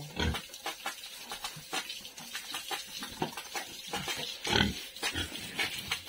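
Domestic pigs grunting in their pen: short, irregular grunts, with a louder one about four and a half seconds in.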